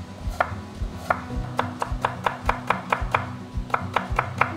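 Chef's knife cutting a carrot into thin strips on a wooden cutting board: a few separate strokes, then quick runs of chopping at about five strokes a second.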